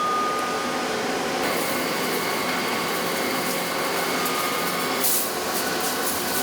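Factory machinery running steadily with a thin whine, and a brief hiss near the end.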